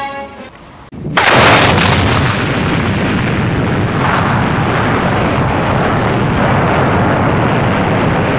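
A sudden loud blast about a second in, followed by a dense, steady rumbling noise that carries on.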